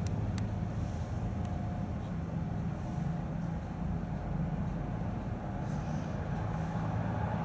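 The interior of a 71-619A tram car standing still: a steady low hum of its onboard equipment, with a single sharp click less than half a second in.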